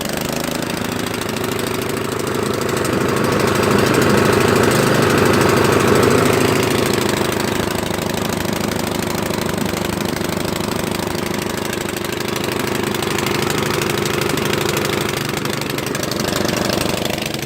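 A snowblower engine running steadily but rough, swelling a little louder for a few seconds early in the run. The owner puts the poor sound down to having forgotten to set the choke.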